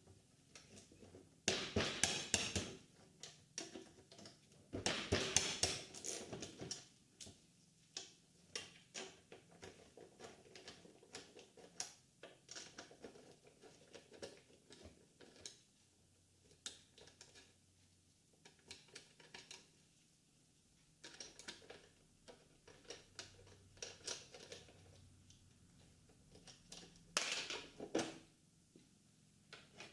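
Gloved hands working on the 2001 Yamaha R1's windscreen and upper fairing: scattered small clicks and taps of plastic and fasteners. There are three louder bouts of rubbing, about two seconds in, from about five to seven seconds, and near the end.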